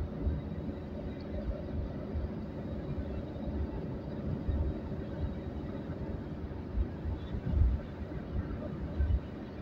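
Road and engine noise inside a moving car at cruising speed: a steady rumble with a low thump every second or two.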